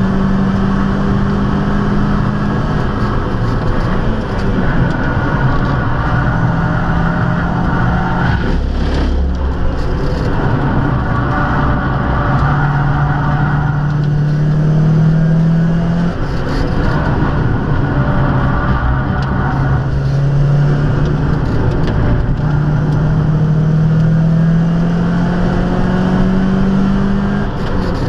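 Renault Mégane Coupé 2.0 16v F7R four-cylinder engine with a sport exhaust silencer, heard from inside the cabin as it is driven hard on track. The engine pitch climbs in long pulls and drops back at each gear change or lift, several times over.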